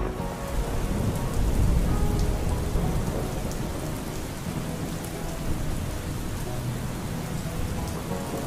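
Steady heavy rain, with a low rumble of thunder that is loudest in the first two seconds or so and then fades under the rain.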